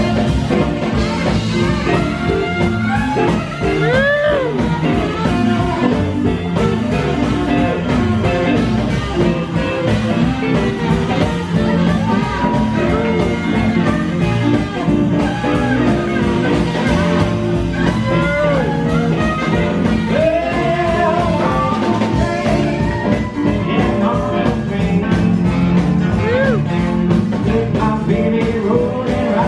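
Live swing and rockabilly band playing: upright bass, drums, hand drums, electric keyboard and saxophone, with a lead line of notes that bend up and down over the steady bass.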